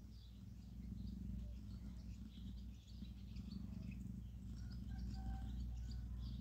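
Mother cat purring steadily while a kitten tries to nurse at her belly, with many faint, short high chirps throughout and a couple of brief pitched squeaks about five seconds in.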